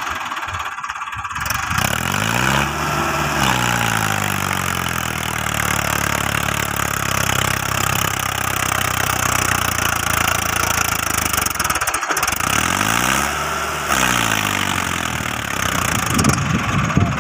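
Mahindra Arjun 555 DI tractor's four-cylinder diesel engine running, revving up and back down about two seconds in and again near the end, with a brief break just before the second rev.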